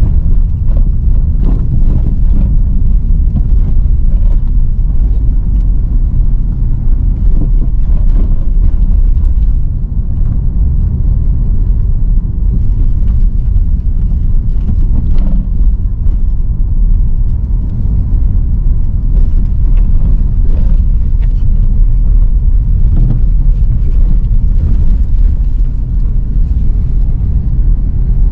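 Loud, steady low rumble of a car driving, heard from inside the cabin: engine and road noise.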